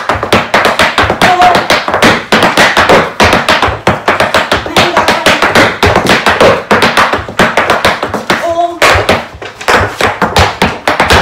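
Irish dance hard shoes beating out a fast, dense run of taps, clicks and stamps on the floor, with a short lull about nine seconds in.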